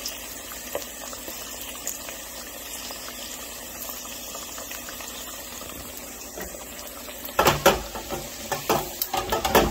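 Breaded pickle chips frying in the oil of an electric deep fryer: a steady bubbling hiss. About seven seconds in, louder irregular crackles and knocks start as the wire fry basket is handled.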